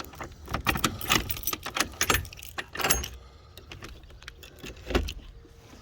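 A quick clattering run of sharp clicks and rattles for about the first three seconds, then a single louder knock about five seconds in.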